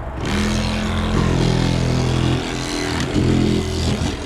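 A handheld power cut-out tool's motor runs, starting abruptly and dipping briefly about two and a half and four seconds in, as it cuts through the old windshield's urethane.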